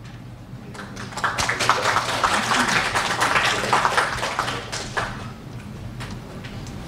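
Small audience applauding, swelling about a second in and dying away after about five seconds.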